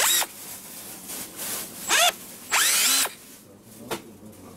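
FEIN ABS18 18 V cordless drill's motor and gearbox whirring in three short trigger pulls, each spinning up in pitch; the last run is the longest, about half a second.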